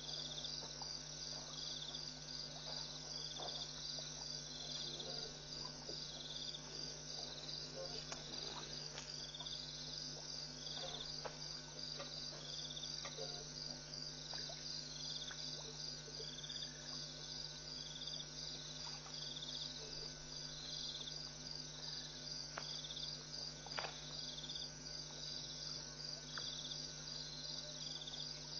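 Night insects, crickets, chirping in a steady, rapid rhythmic chorus, over a constant low hum. A few faint scattered clicks and knocks come through, one a little louder near the end.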